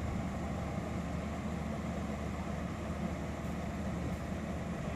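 MAN diesel railcar idling while standing, a steady low diesel hum.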